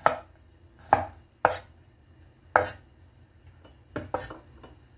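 Cleaver chopping garlic on a bamboo cutting board: about six sharp, unevenly spaced knocks of the blade on the wood, with two close together near the end.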